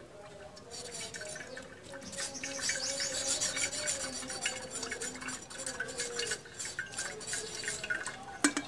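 Perforated steel skimmer scraping and pressing fruit pulp around a steel sieve to strain tamarind and plum syrup. It makes a rapid metal-on-metal scraping that starts about two seconds in, with a sharper clink near the end.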